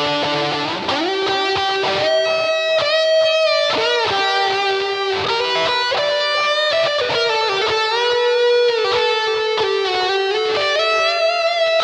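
Dhatarattha Custom DHL electric guitar played through its bridge humbucker: a single-note lead line of held notes joined by slides and pitch bends, with a rising slide about a second in.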